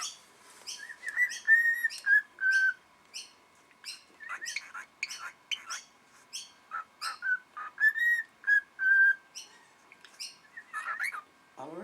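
Cockatiel whistling two short phrases of clear, held notes, one about a second in and one near the middle, among many short, sharp high chirps or clicks.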